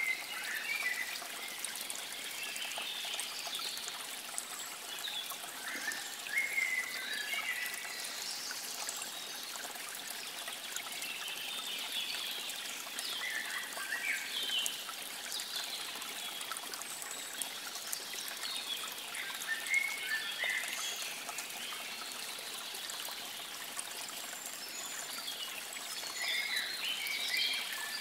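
Water trickling steadily, with short high chirps of small birds calling here and there over it.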